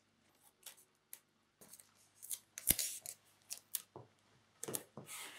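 Painter's masking tape being torn off by hand and handled: faint, scattered short crackles, with one sharper snap near the middle and a longer rustling tear near the end.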